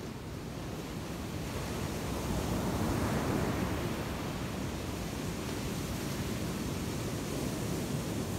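Ocean surf breaking on a beach: a steady wash of waves that swells about two to three seconds in.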